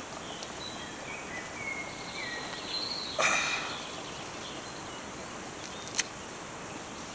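Quiet forest background with a few distant bird calls, and about three seconds in a short rasp of a bootlace being pulled through the eyelets of a leather hiking boot as it is unlaced. A single sharp click near six seconds.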